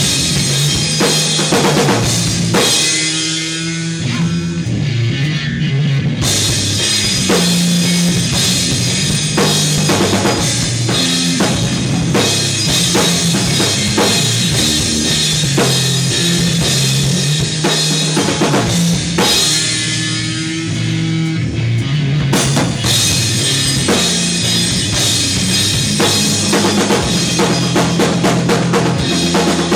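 Rock band playing live and loud: a drum kit with bass drum, snare and cymbals driving under an electric guitar's heavy low line. Twice, about three seconds in and again near twenty seconds, the cymbals drop out for a few seconds before the full beat comes back.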